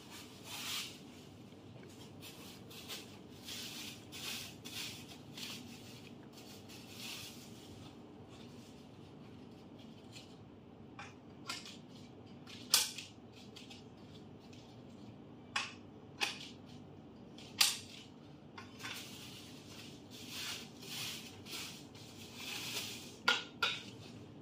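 Plastic packaging rustling as tubes are unwrapped, broken by several sharp clinks and knocks of metal tubes against each other, the loudest a little before halfway and a few in the last seconds.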